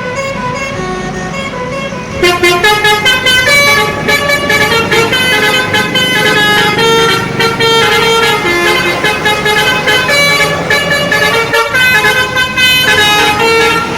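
Bus telolet horn, a multi-tone musical horn, playing a stepped melody, quieter at first and much louder with rapid pulsing notes from about two seconds in, over the rumble of a passing bus.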